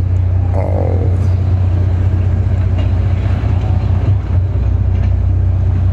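A crane's engine running steadily under load, a loud low hum that holds throughout. A brief voice cuts in about half a second in.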